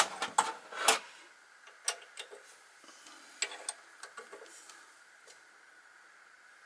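Metal clicks and taps from chuck keys working the jaw screws of a Myford ML7 lathe's four-jaw chuck as the jaws are adjusted by hand: a cluster of sharp clicks in the first second, then a few lighter ones over a faint steady hum.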